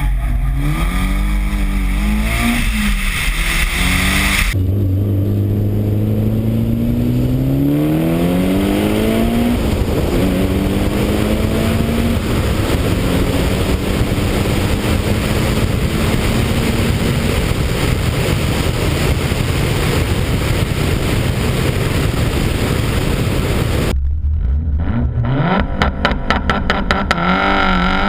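Mitsubishi Lancer Evolution's turbocharged four-cylinder engine accelerating hard through the gears, its pitch climbing and dropping back at each shift, with wind rushing over an exterior-mounted GoPro's microphone. The sound changes abruptly about four seconds in and again near the end.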